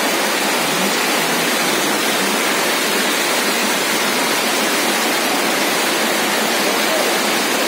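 Mudflow floodwater rushing down a street: a loud, steady rush of water.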